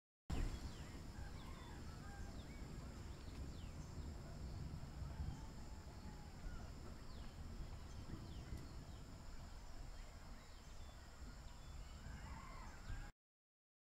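Forest ambience: a steady high insect drone with scattered short bird chirps over a low rumble. It starts and stops abruptly.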